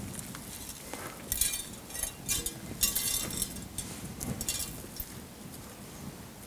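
Granular bonsai soil crunching and rustling as hands press and work it in around a pine's roots in a training pot, in a few short gritty bursts in the first half, quieter towards the end.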